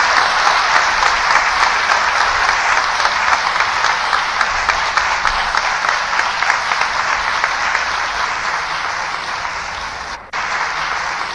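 Audience applauding, dense clapping that slowly fades, with a momentary break about ten seconds in.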